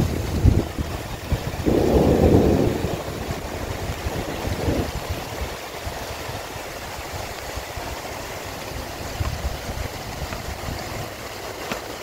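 Wind gusting in a heavy rainstorm, buffeting the microphone in low rumbling swells over a steady hiss of rain. The strongest gust comes about two seconds in.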